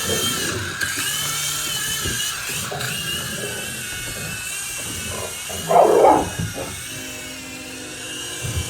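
Small toy helicopter's electric rotor motors whining steadily, the pitch wavering as the throttle changes. A dog barks loudly once about six seconds in.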